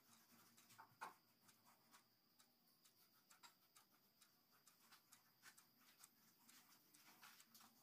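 Near silence: faint room tone with soft scattered ticks and light rubbing.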